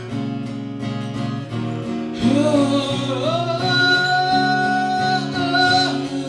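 A song with strummed acoustic guitar. About two seconds in, a voice comes in singing one long held high note, wordless or a drawn-out vowel, which ends just before the close.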